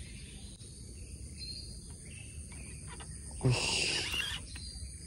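Baitcasting reel being cranked to work a lure, with faint clicks. About three and a half seconds in comes a louder rasping sound lasting under a second.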